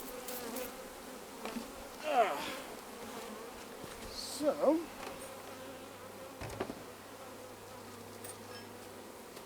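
Honeybees buzzing around an opened hive, disturbed by the work on it. About two seconds in a bee passes close with a brief louder buzz that rises and falls in pitch.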